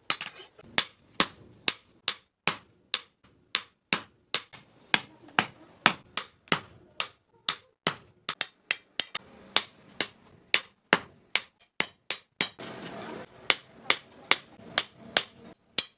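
Hammer blows on steel at the anvil, forging a meat cleaver: a steady run of strikes, about two a second, each with a short high ring. About three-quarters of the way through, a brief rush of noise sounds between the blows.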